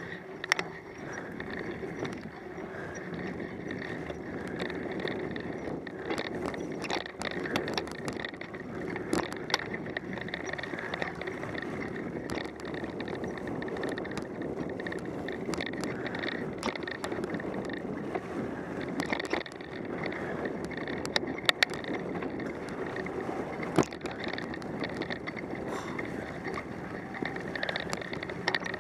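Bicycle riding over a trail of dry leaves and thin snow: steady tyre and drivetrain noise with frequent clicks and rattles as the bike jolts over the ground.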